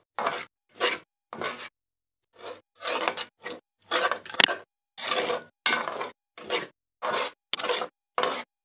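A thick milk-and-cornflour stuffing paste being stirred in a pan, the spoon scraping the pan in rhythmic strokes about twice a second, with a short pause near 2 s and a sharp knock against the pan about halfway through.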